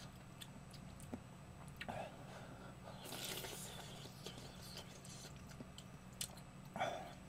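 Close-up mouth sounds of eating Shin Ramyun instant noodles: quiet chewing with small clicks, and a longer slurp from the spoon about three seconds in.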